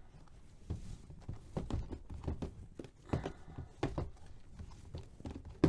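Sealed trading card boxes being shuffled and set down on a table: irregular light knocks, taps and scrapes, with one sharp knock at the very end.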